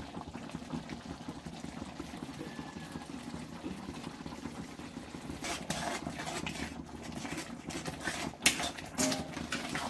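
Water boiling hard in a steel kadhai on a gas stove, a steady low rumble. From about halfway through come several sharp clinks and knocks of a utensil against the metal pans, the loudest near the end.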